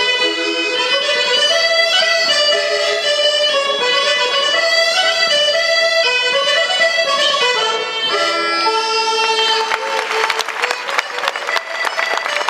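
Traditional folk dance tune played live on accordion and other folk instruments, ending about eight or nine seconds in. The audience then applauds.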